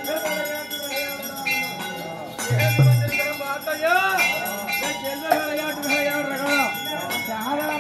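Live Tamil folk band playing for a temple god dance: a melody that glides up and down in pitch over drumming, with bells jingling. A heavy low drum stroke lands about three seconds in.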